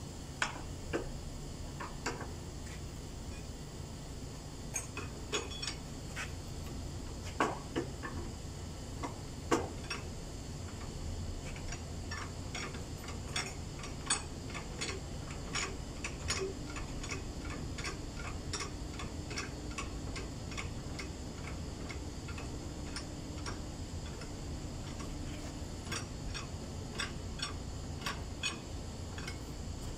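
Sharp metallic clicks from a hand tool being worked with a long bar at the front of a truck cab. They are scattered at first and then settle into a fairly steady run of about two a second, over a low steady hum.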